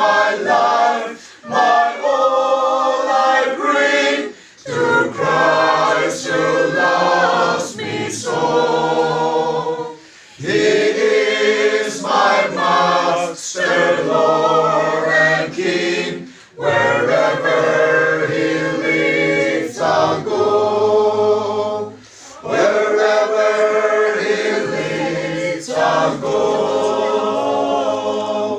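A group of mixed voices singing a hymn together unaccompanied, in long phrases with short breaks for breath between them.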